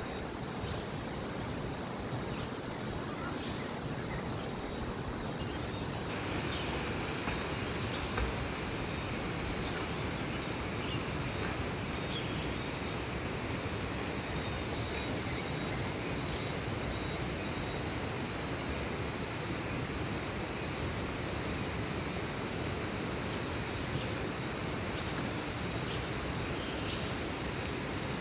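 Steady rushing of river water, with a thin, steady high tone running above it.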